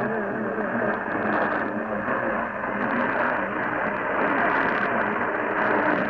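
Sparc portable AM/FM radio putting out steady AM static while it is tuned between stations, with faint wavering traces of a station's audio in the first second.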